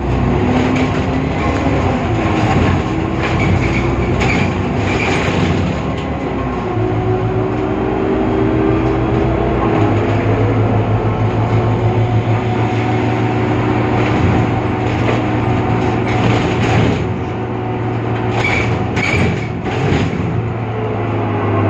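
Irisbus Citelis CNG city bus running, its Cursor 8 gas engine giving a continuous drone with whining tones that shift in steps, over rattles and knocks.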